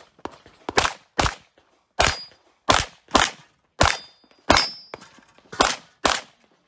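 Competition pistol firing a string of about nine shots at a match pace, several as pairs about half a second apart. A brief high ring follows a few of the shots.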